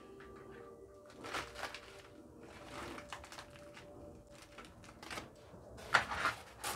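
Pliers twisting thin anchoring wire around a tree's root ball in a bonsai pot: scattered metal clicks and gritty scrapes, the loudest about six seconds in.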